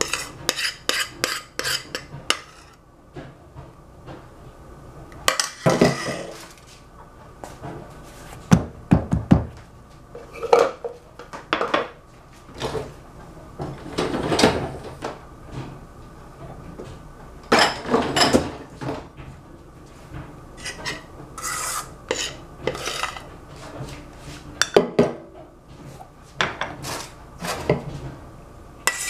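Spatula scraping and tapping against a stainless steel mixing bowl as chocolate mousse is scraped out into glass dishes: quick runs of scrapes and knocks with short pauses between, and now and then a louder clatter of metal and glass.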